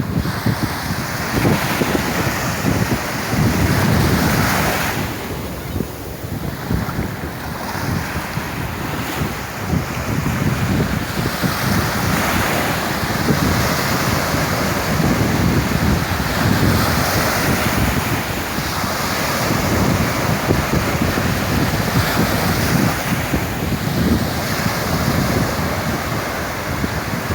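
Sea waves breaking and washing on the shore, swelling and ebbing every few seconds, with wind buffeting the microphone.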